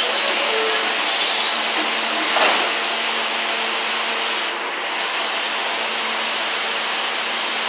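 An R160 subway train standing at the station platform, its onboard equipment giving a steady whirring hiss with a hum under it. A single knock comes about two and a half seconds in, and the highest part of the hiss drops away suddenly a little past halfway.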